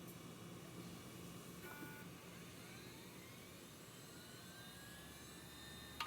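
Seagate Medalist hard drive spinning up: a faint whine that rises in pitch over a couple of seconds, over a steady low hum, with a click at the end.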